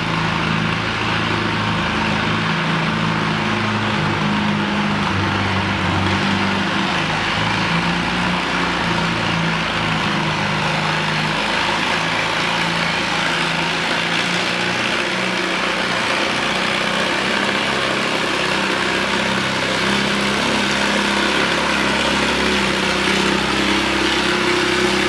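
Minneapolis Moline pulling tractor's engine running hard under load as it drags a weight-transfer sled, its pitch stepping up and down every few seconds.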